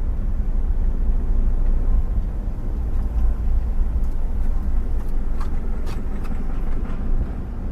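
Steady low rumble of a moving vehicle on city roads, with a couple of faint clicks about five and a half to six seconds in.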